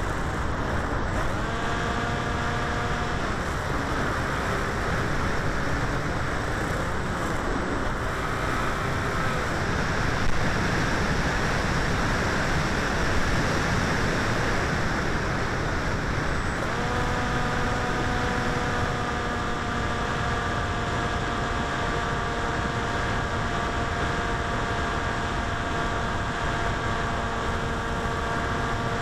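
Electric motor and propeller of a 900 mm Popwing flying wing droning over a steady rush of wind noise. The drone's pitch shifts up and down with the throttle in the first third, then holds one steady note from a little past halfway.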